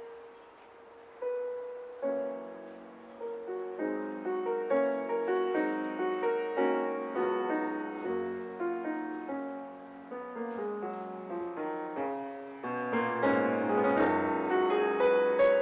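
Solo grand piano playing a classical piece: a soft pause with a held note, then single notes about a second in, building into a flowing run of many notes that grows louder near the end.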